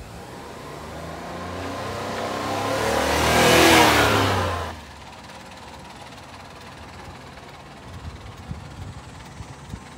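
Honda Acty kei truck's small three-cylinder engine driving toward and past, growing louder and then dropping in pitch as it goes by. The sound cuts off abruptly a little under five seconds in, leaving only a faint low background.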